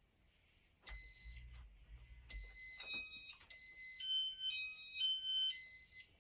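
Casablanca Inteli-Touch fan control beeping: a click, then a run of electronic beeps at several different pitches, stepping up and down like a short tune over about five seconds.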